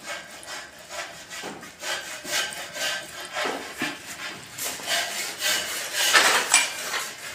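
Plaster being scooped and mixed by hand in a metal bucket: repeated scraping and rubbing strokes, about two a second, growing louder toward the end.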